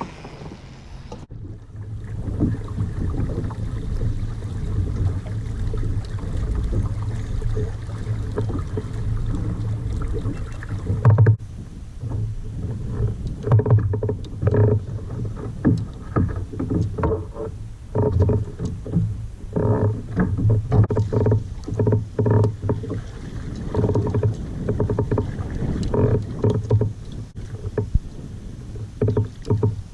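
Kayak on the water, with hull and water noise. From about a third of the way in come irregular knocks and splashes, roughly once or twice a second.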